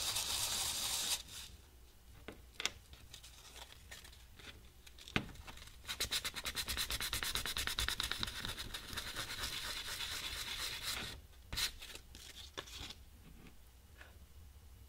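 A metal washer scrubbed briefly on sandpaper, then a white Teflon (PTFE) block rubbed back and forth on the sandpaper in quick, even strokes for about five seconds, roughening the surfaces so they will bond. A few light knocks come as the pieces are handled.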